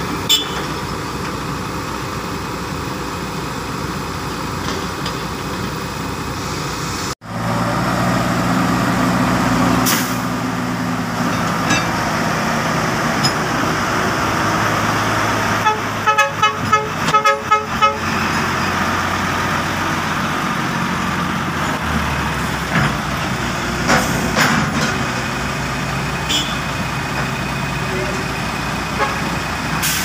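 Diesel engines of a dump truck and a wheeled excavator running, with a quick series of short beeps near the middle.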